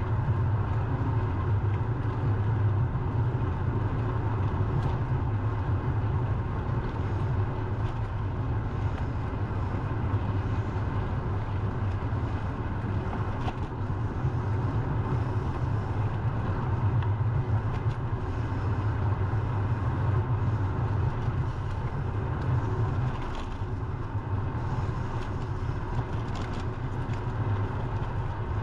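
Steady road traffic noise heard from a bicycle, with a continuous low rumble and a few faint clicks. The level dips slightly near the end.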